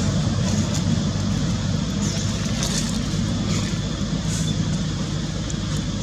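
Steady low rumble of motor-vehicle traffic, with a couple of faint high chirps.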